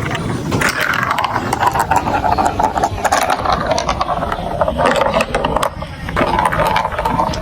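Marbles rolling and clattering down a plastic building-block marble run: a continuous rolling rumble with many rapid clicks as the marbles hit the plastic pieces.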